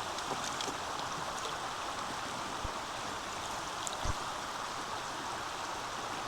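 Highland river running high after heavy rain: a steady rush of flowing water, with a couple of short low thumps about two and a half and four seconds in.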